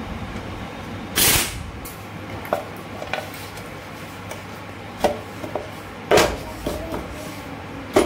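Metal clunks and knocks as the aluminium clutch cover is set onto a Bajaj CT 100 engine's crankcase, after a short loud burst of noise about a second in.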